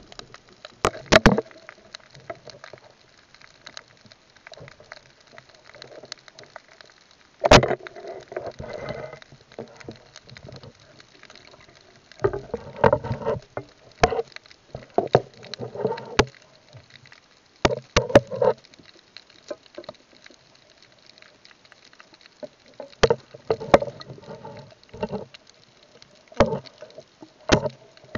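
Underwater sound picked up by a diving camera: a string of sharp clicks and knocks, with bursts of bubbling and sloshing water between them, heaviest in the middle and near the end.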